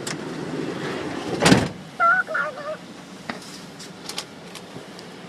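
A vehicle door sliding shut, ending in a loud thud as it latches about a second and a half in, followed by a short warbling tone and a few light clicks.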